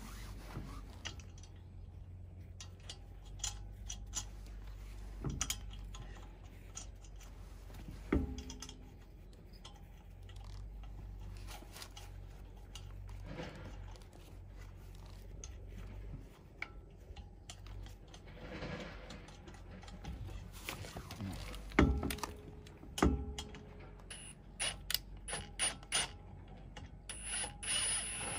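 Lug nuts being threaded by hand onto wheel studs: scattered small metallic clicks and clinks, with a few sharper knocks. A quicker run of clicks comes near the end.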